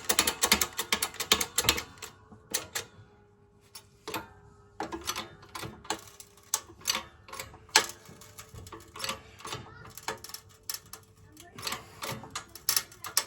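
Irregular sharp metal clicks and clanks from parts and tools being handled at a workshop hydraulic press, setting up to press a wheel bearing into a hub. The clicks come thick and fast at first, then more spaced out.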